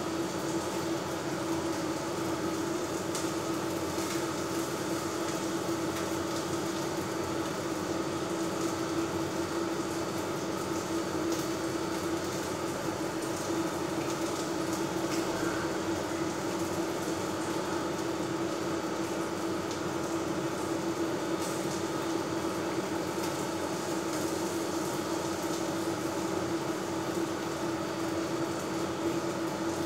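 Steady fan hum with one constant low tone, over a light sizzle of shrimp and fish frying in a pan on an induction hob.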